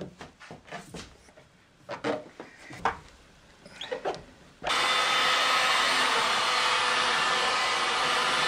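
A few light rubs and knocks as flexible hose is worked onto a plastic cyclone inlet, then, a little over halfway through, a handheld electric heat gun switches on suddenly and runs with a steady blowing hiss.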